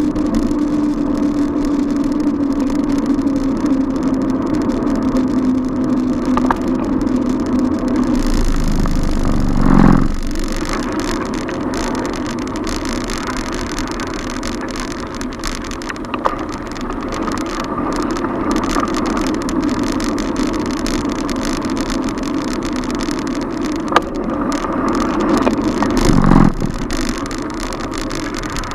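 Street traffic heard from a moving bicycle: motor vehicles running close by with a steady low engine hum. A vehicle swells past about ten seconds in and again near the end, with a few sharp clicks in between.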